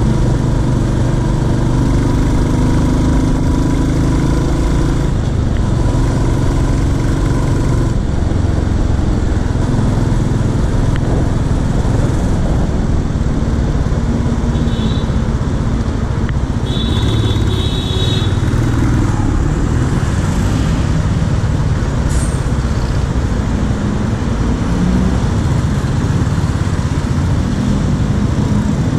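Royal Enfield Classic 350's single-cylinder engine running as the motorcycle rides through city traffic, its low engine note mixed with road and wind noise. Two brief high-pitched tones come about halfway through.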